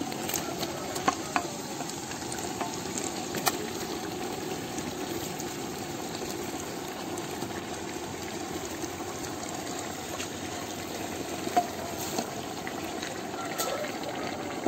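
Raw chicken pieces dropped into a large aluminium pot of biryani masala and mixed with a wooden spatula over a steady wet hiss, with a few sharp knocks of the spatula or pieces against the pot.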